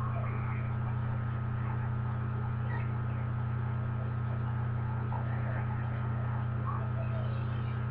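Steady electrical mains hum, a low drone with a faint higher tone over it, with faint scattered handling sounds.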